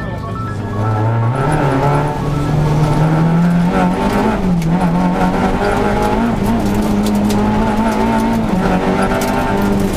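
Rally car engine heard from inside the cockpit, pulling hard at high revs. Its note climbs about a second in, then holds high with two brief dips as the driver lifts or shifts.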